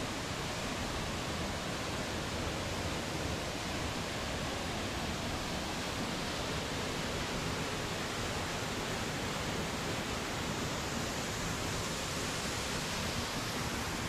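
Waterfall's falling water, a steady, even rush with no change in level.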